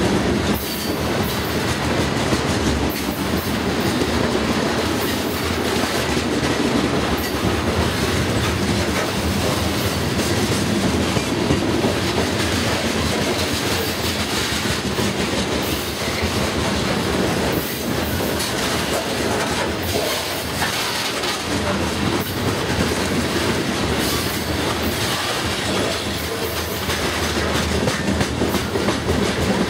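Freight train of covered hopper grain cars passing close by, steel wheels rolling over the rails with a steady rumble and clatter.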